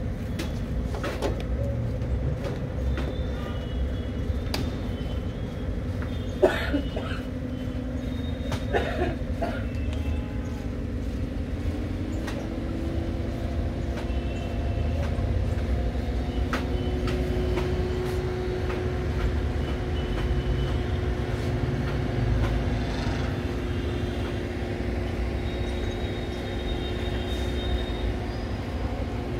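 Steady low machine rumble with a droning hum that steps up in pitch about twelve seconds in, from an engine or motor running, with a few sharp knocks; the loudest is about six and a half seconds in.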